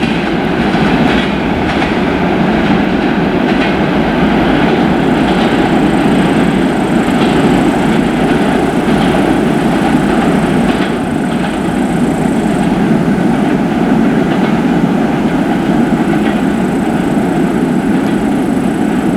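Freight train wagons rolling past with a steady loud rumble and a rhythmic knocking of wheels over rail joints. A faint, thin, high whine comes in about a quarter of the way through and returns near the end.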